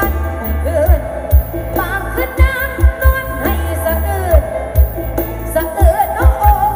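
A song with a singing voice played loud through OD15 subwoofer cabinets. Deep kick-drum thumps land a few times a second under long, heavy bass notes.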